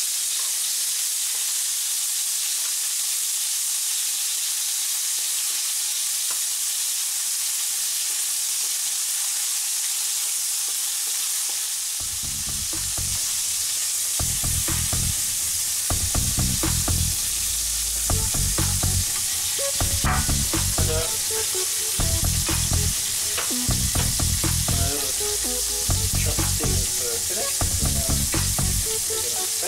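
Bacon pieces and a chopped-beef patty sizzling in hot oil in a frying pan, with a wooden spatula scraping and clicking against the pan as they are turned. About twelve seconds in, background music with a low, steady beat comes in under the sizzle.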